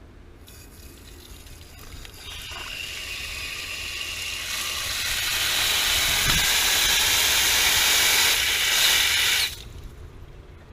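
Water rushing through a just-opened supply valve into newly soldered copper piping and a new supply line, pressurising the joints for a leak test. The hiss builds over several seconds and cuts off suddenly near the end.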